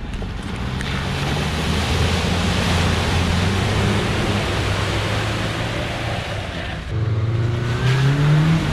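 Off-road 4x4 engine pulling steadily under load through deep mud and water, with a heavy wash of splashing and churning mud. About seven seconds in the sound changes suddenly to another 4x4's engine revving up and down in the water.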